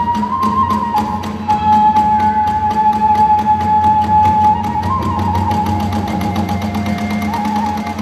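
Kagura hayashi music: a bamboo transverse flute holds long high notes that step in pitch a few times, over a fast, even beat of small hand cymbals and drums.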